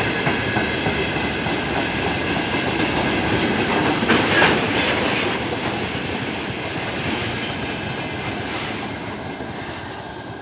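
Freight train of gondola and tank wagons rolling past, wheels clattering rhythmically over the rail joints, with a brief louder rush about four seconds in. The sound fades as the tail of the train draws away.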